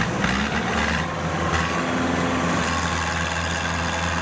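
Heavy diesel engine of farm machinery running steadily at a constant speed, a low continuous drone.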